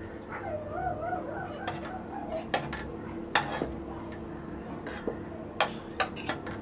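A ladle stirring kadhi in an aluminium pot, knocking and clinking against the pot several times in sharp, separate strikes. A faint wavering pitched sound comes in the background during the first two seconds, over a steady low hum.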